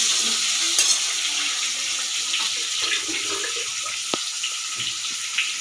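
Potato chunks frying in hot oil in a steel kadai: a steady sizzle, with a metal spatula stirring them and giving a few light clicks against the pan.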